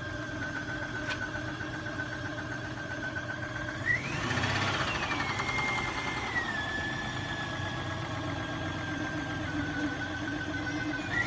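Nissan Xterra engine running with a knocking noise whose cause the owner cannot identify, plus a steady whine. About four seconds in it is revved once: the whine climbs, holds briefly and settles back to idle, and it starts to rise again near the end.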